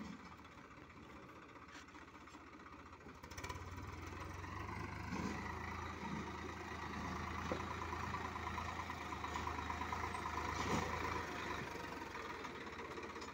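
Swaraj 855 FE tractor's three-cylinder diesel engine running as the tractor drives, its steady low hum growing louder from about three and a half seconds in as it comes closer.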